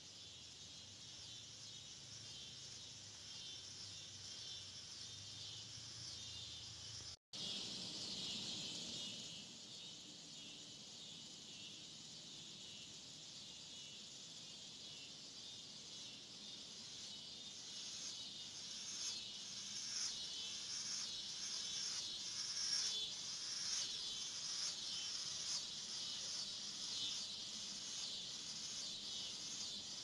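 Dense chorus of swamp insects: a steady high shrill with a fine pulsing rhythm, growing louder and more strongly pulsed in the second half. The sound drops out for a moment about seven seconds in.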